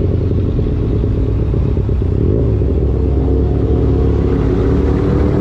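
Benelli 302S motorcycle's 300 cc parallel-twin engine running steadily at a constant low speed through its stock exhaust.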